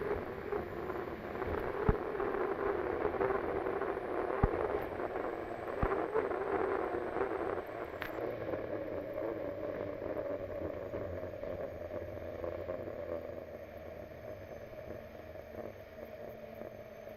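Unlimited hydroplane's turbine engine running, heard onboard over the hiss of the hull on the water, with three sharp knocks in the first half. Its pitch steps up about halfway through, and the sound then gets gradually quieter.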